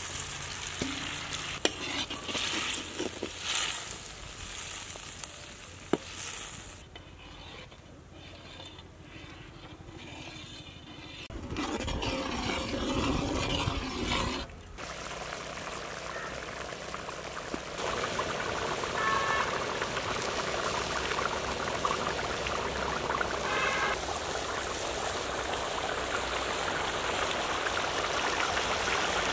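Small fish tipped from a steel bowl into simmering curry in a large iron wok, with a few clinks. A steel ladle then stirs the curry, the loudest stretch, and the curry goes on bubbling with a steady hiss.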